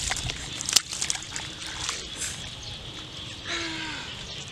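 Splashing and sloshing in shallow muddy water as a large fish is grabbed by hand and lifted out, with scattered sharp slaps and a loud snap about a second in. Near the end comes a short falling voiced sound.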